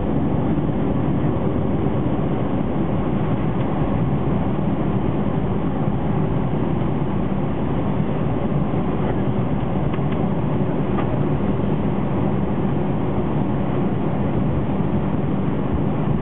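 Airbus A320 cabin noise: a steady, even rumble of the underwing jet engines, airflow and wheels as the airliner rolls along the runway after landing.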